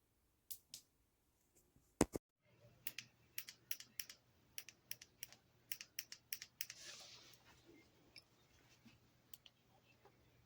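A run of light, irregular clicks, two or three a second, after a louder double click about two seconds in; a faint low hum comes in at the same moment and stays.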